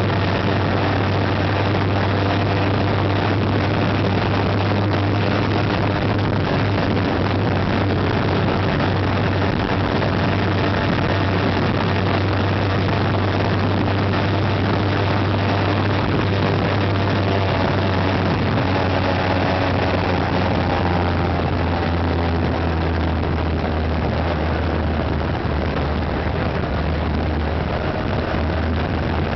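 Motorcycle engine running steadily at cruising speed, a constant low drone under heavy wind and road noise, without rises or falls.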